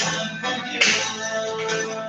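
Background music with held notes and a bright, cymbal-like accent about a second in.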